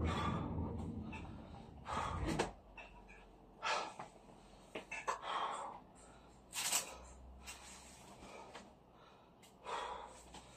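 A man breathing hard, winded after a heavy bag boxing workout: a deep, noisy breath every couple of seconds.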